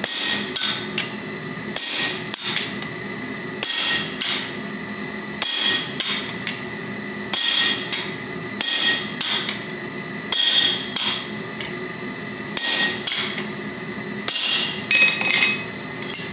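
Hammer striking a hand-held chisel through red-hot steel laid on an aluminium plate on the anvil, cutting the bottle opener free from its bar. Sharp metallic blows come in quick pairs or threes about every two seconds, each ringing briefly.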